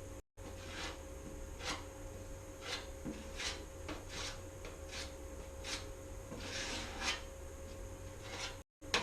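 Body filler being spread onto a truck's welded body panel with a spreader: short scraping strokes, one after another about every half second to a second, over a faint steady hum.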